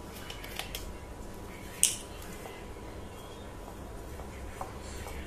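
A hand kneading flour moistened with ghee, honey and condensed milk on a ceramic plate: soft squishing and rustling, with a few light clicks of fingers against the plate and one sharp scratchy scrape about two seconds in.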